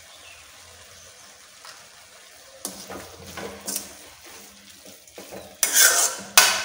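Metal spoon stirring and scraping grated beetroot around an aluminium kadai, over a faint steady sizzle of frying in oil. The stirring strokes start about two and a half seconds in and are loudest near the end.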